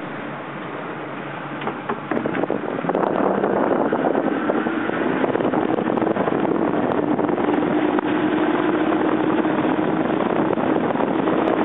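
Motorboat under way: engine running with rushing wind and water noise, growing louder about three seconds in.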